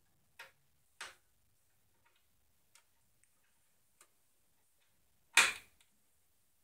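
A few sharp clicks and taps of hard objects, spaced a second or more apart, then one much louder clack about five seconds in.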